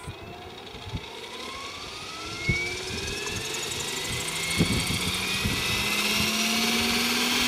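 Electric radio-controlled model helicopter (Henseleit TDR with a Kontronik Pyro 700 motor) spooling up on the ground: the motor and gear whine climbs steadily in pitch and grows louder as the rotor blades come up to speed after the throttle hold is released. A few dull thumps sound along the way.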